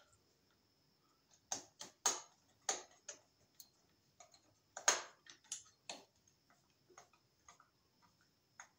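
Screwdriver clicking and scraping on the terminal screws of a porcelain lampholder as the wires are fastened under them: a run of irregular small clicks, the sharpest about five seconds in.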